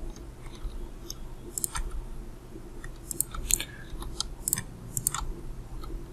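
Computer mouse clicking: a series of short, sharp clicks, several in quick pairs like double-clicks, over a low steady hum.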